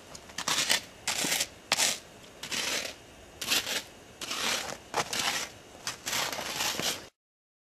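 A stick scraping and jabbing into crusty snow: a run of short, crunching scrapes a fraction of a second each, about one a second, until the sound cuts off abruptly near the end.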